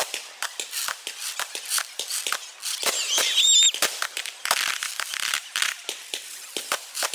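Fireworks crackling: a dense, irregular run of sharp pops and snaps, with a brief high whistle about three seconds in.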